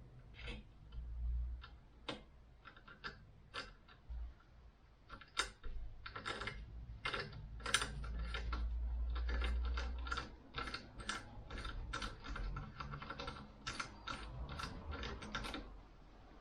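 Irregular clicking and clinking of metal hand tools, some of it in quick runs of clicks, with a low rumble for a few seconds in the middle.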